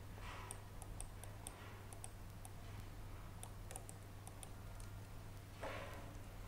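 Light, irregular clicking of a computer mouse and keyboard, over a low steady hum. A short rush of noise near the end.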